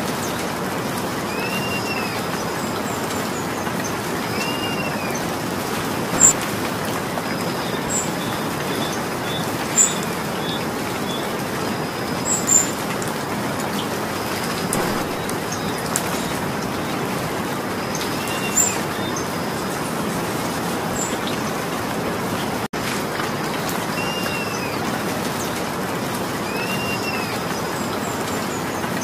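Steady rain falling. A bird repeats a short rising-and-falling chirp every two or three seconds, and a few sharp, bright drip ticks stand out over the rain.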